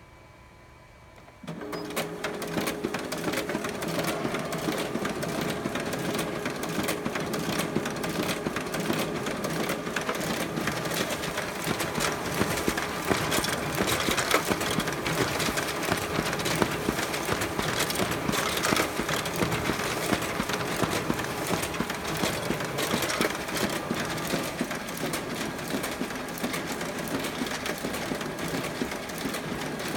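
A 41-page-per-minute office copier starting up about a second and a half in, then running steadily: the document feeder pulling the originals through while the print engine feeds and ejects copies, a continuous mechanical whir with dense rapid clicking.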